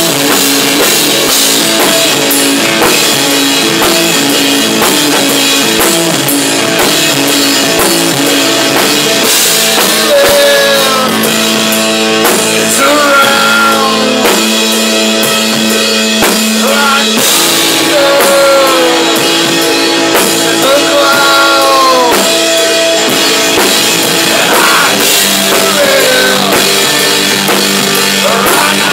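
A rock band playing live: drum kit with cymbals and guitars in a steady groove, with sliding, bending high notes over the top from about ten seconds in.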